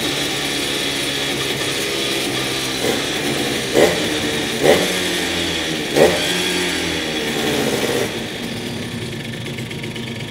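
Simson two-stroke moped engine running on a newly developed PZ-Tuning engine case, briefly revved three times around the middle, a little quieter after about eight seconds.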